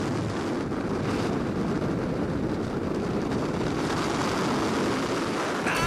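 Steady rushing wind noise of skydiving freefall blowing over the microphone. Music begins just before the end.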